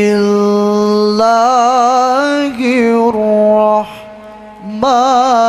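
A single man's voice chanting melodic Qur'an recitation through a microphone. He holds long notes with wavering trills, pauses briefly about four seconds in, then resumes.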